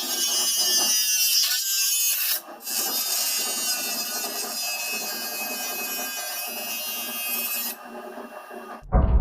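Small high-speed electric motor running with a steady high-pitched whine, dipping briefly about two and a half seconds in and cutting off near the end. A deep booming music hit starts right at the end.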